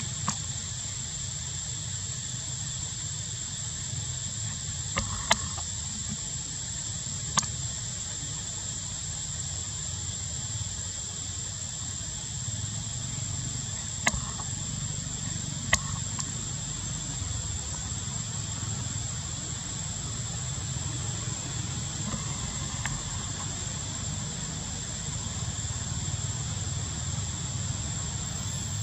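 Steady high-pitched insect drone, with a low rumble underneath and a few sharp clicks scattered through.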